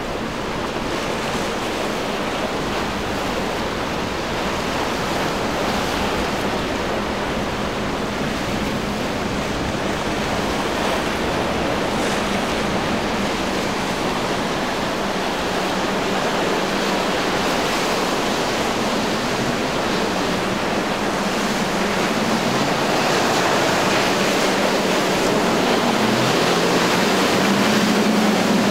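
Steady rush of waves, spray and wind around a powerboat running at speed through choppy water, with a low drone from its triple Mercury 300 hp outboards underneath. It grows slowly louder over the last several seconds as the boat comes closer.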